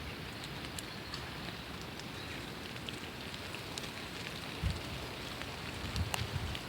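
Steady rain falling, with scattered individual drops ticking, and a couple of low rumbles in the later part.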